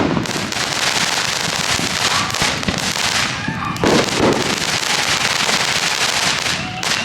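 Wood fire crackling and popping inside the steel drum of a washing-machine fire pit.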